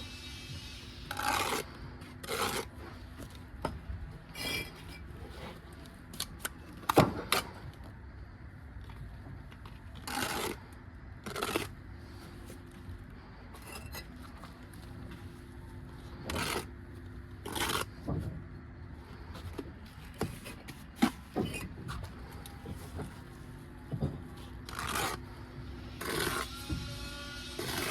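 Bricklaying: a trowel and bricks scraping through mortar in short strokes every second or two, with a few sharp knocks as bricks are tapped down, over a steady background hum.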